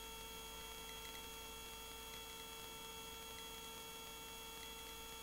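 Faint steady electrical hum with a few thin, steady high whine tones on a helicopter intercom audio line, between radio transmissions. The rotor and engine noise is almost absent.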